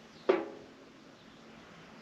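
A single sharp clunk about a quarter second in, with a short ringing tail that dies away within half a second.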